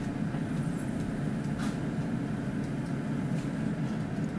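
Steady low rumble of room background noise, like a running fan, with faint short clicks about one and a half and three and a half seconds in.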